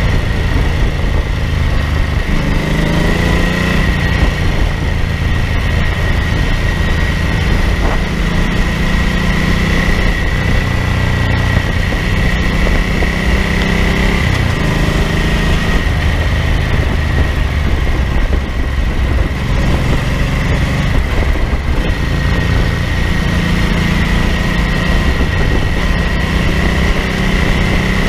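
Ducati 900SS bevel's air-cooled 90-degree V-twin running under way, its pitch rising and falling several times with throttle and gear changes, over heavy wind rumble on the microphone. A steady high whine runs underneath.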